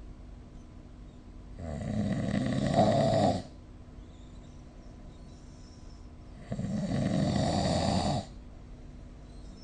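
A sleeping person snoring: two long snores about five seconds apart, each under two seconds long, with quiet breathing between them. The first snore grows louder toward its end.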